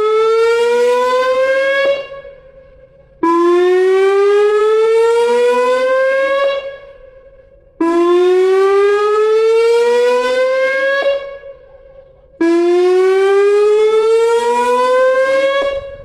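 Tsunami warning siren sounding a loud rising wail over and over: one wail cuts off about two seconds in, then three more each climb steadily in pitch for about three seconds and stop abruptly, with a short gap between them.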